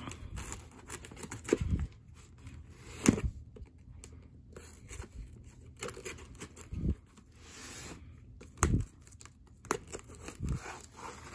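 Small knife slitting the packing tape along a cardboard box's seam, with scratchy tearing of tape and cardboard and several dull thumps as the box is handled.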